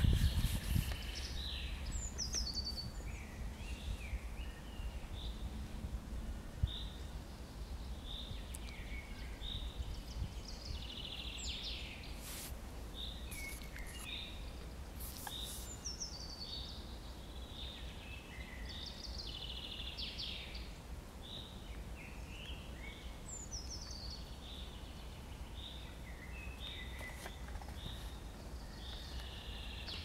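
Several woodland songbirds singing together, with many short repeated notes and a few phrases that slide down in pitch, over a steady low rumble.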